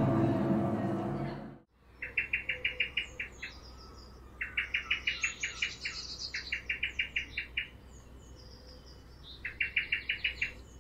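A gong-like musical tone fading out over the first second and a half, then birds singing: several bursts of rapid repeated chirps, about eight a second, with higher, thinner calls in between.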